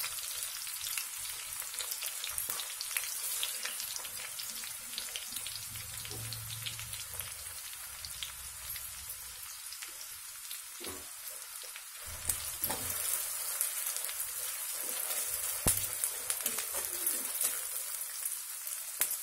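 Sliced onions sizzling and crackling steadily in hot oil in an aluminium kadai, with a few knocks of a metal ladle stirring against the pan.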